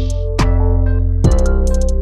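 Background electronic music: held synth chords over a deep bass, with a steady kick-drum beat and hi-hat ticks.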